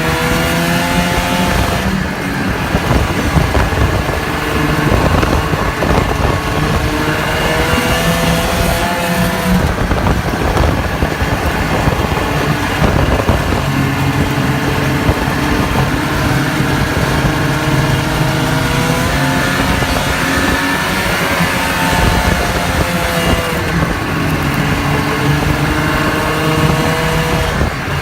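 Snowmobile engine running under way. It speeds up and eases off several times, with its pitch climbing and then dropping, and holds steady for a while in the middle.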